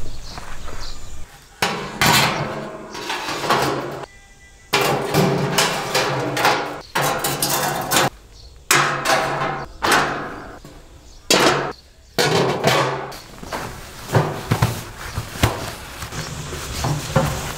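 Metal stove parts clanking as a grate and inserts are set into a metal fire-pit body: a series of sharp knocks, each ringing and dying away over a second or so.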